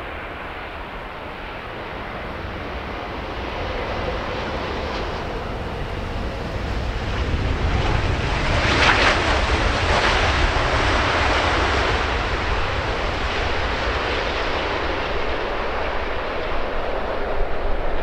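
Jet airliner on final approach passing low and close. Its engine noise builds to its loudest about halfway through, then slowly falls away.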